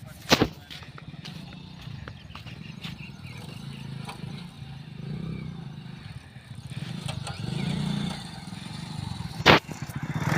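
A low engine hum that swells and fades, with two sharp loud knocks, one just after the start and one near the end.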